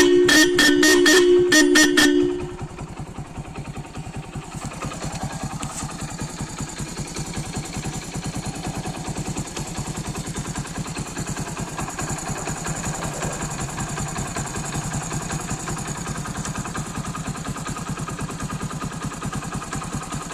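Hero Splendor Plus motorcycle's electric horn sounded in a quick series of short beeps for about two seconds, then the bike's single-cylinder engine idling steadily with an even, rapid pulse.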